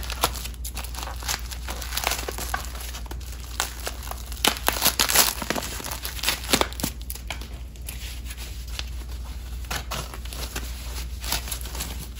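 Thin foam sheet and plastic wrap crinkling and tearing as they are snipped with scissors and peeled away, a dense, irregular run of crackles that is loudest about five seconds in.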